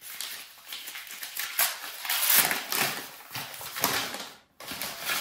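Paper wrapping crinkling and rustling in the hands as a package is unwrapped, in uneven scrunches with a short pause about four and a half seconds in.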